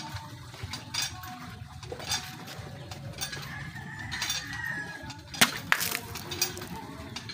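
A hand-forged fighter bowie knife slashing through a plastic water bottle, a loud sharp crack about five and a half seconds in with smaller knocks just after, following a few lighter knocks as the knife is handled. Chickens in the background.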